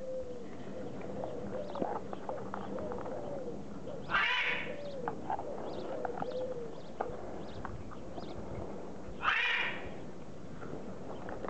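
Border collie puppies playing: a thin, wavering whine with little rising and falling hooks runs through the first seven seconds, and two short, louder yaps come about four and nine seconds in, over small scattered clicks.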